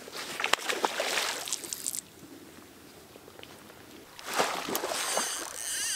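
A hooked trout splashing at the water's surface as it is brought to the landing net, in two bouts of sloshing: one starting just after the beginning and lasting over a second, and another from a little past four seconds.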